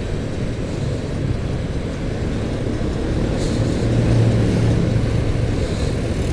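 Motorcycle engine running while riding along a road, under a steady low rumble. The engine note grows stronger for about a second a few seconds in.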